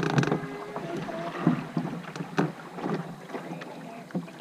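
Canoe paddling: wooden paddle strokes splashing in the river, with several sharp knocks of paddle against the canoe's hull.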